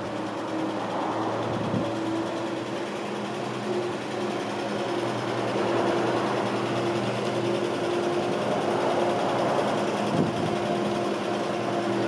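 Rebuilt inline-six engine of a 1951 Chevrolet 3100 pickup running steadily at low speed as the truck drives by, growing louder about halfway through as it comes near.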